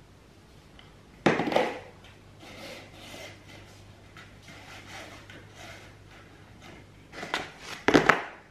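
A cat scratching and rubbing against a cardboard box. There are two loud bursts of cardboard scraping, about a second in and near the end, with fainter scratching and rustling between.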